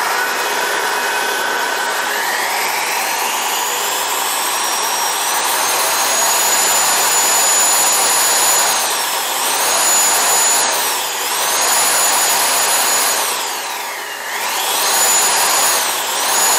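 Electric ducted fan blowing through 3D-printed ducting and vectoring nozzles on a thrust-test stand, a loud rushing whine. It runs at low speed at first, then spools up over about four seconds to a high steady whine at full power. It is throttled back briefly four times, the deepest dip coming near the end.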